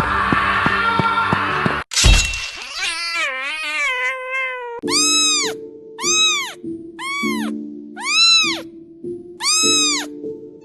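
Music with a beat stops about two seconds in with a thump, then a kitten gives a wavering cry followed by five meows, each rising and falling, about one a second, over soft sustained music chords.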